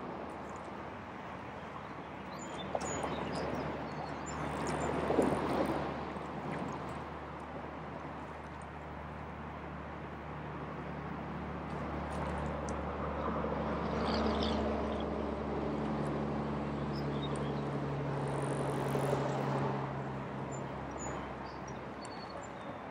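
Water sloshing and splashing as a person wades in shallow water, pushes off and climbs into a tarp-and-branch canoe, loudest about five seconds in. A steady low engine hum runs underneath, growing in the middle and fading near the end, with faint bird chirps.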